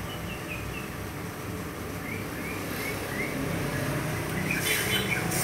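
Idling 1.3-litre four-cylinder petrol engine of a Toyota Grand Avanza, a steady low hum. A few faint short high chirps sound over it.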